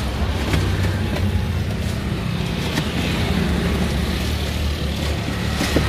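Steady low rumble of road traffic, with a small handheld battery milk frother whirring in a jug of milk.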